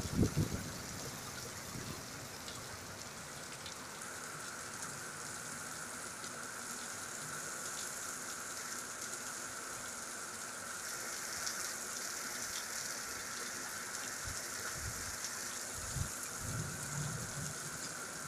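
Cloudburst: heavy rain pouring steadily onto waterlogged paving, an even hiss. A few brief low thumps come just after the start and again near the end.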